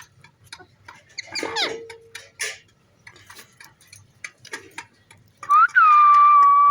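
Pet green parrot clicking repeatedly, with a falling call about a second and a half in. Near the end a loud whistle rises briefly, then holds one steady pitch.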